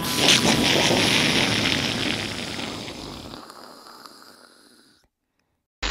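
Cartoon explosion sound effect for a huge impact: a sudden loud blast that dies away slowly over about five seconds.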